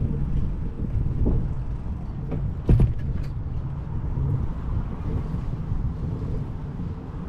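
Riding noise picked up by a bicycle-mounted GoPro: a steady low rumble of wind and road noise, with a few knocks and rattles. The loudest knock comes a little under three seconds in.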